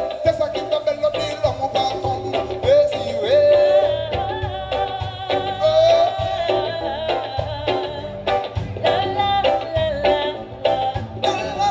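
Live band music with a sung melody over a steady drum beat.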